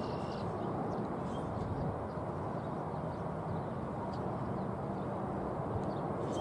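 Steady low outdoor background rumble, with a few faint, brief bird chirps.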